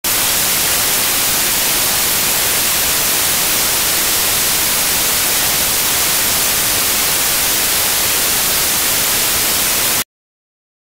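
Loud, steady white-noise hiss, even across the range and strongest in the high end, cutting off abruptly about ten seconds in to dead digital silence.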